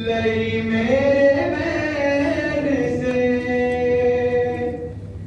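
A man's voice chanting a slow, melodic mourning lament in long held notes that glide up and down. There is a low steady hum underneath, and a short pause for breath near the end.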